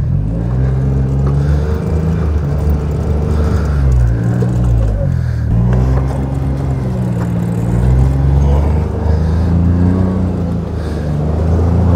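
John Deere Gator utility vehicle engine revving up and down several times as it pulls through snow on rear tires that have zip ties strapped around them for grip.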